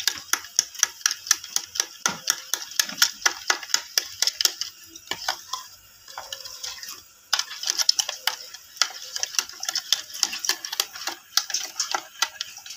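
A spoon stirring yogurt and sugar in a ceramic bowl, clicking and scraping against the bowl about four times a second. The stirring eases off for a couple of seconds midway, then picks up again.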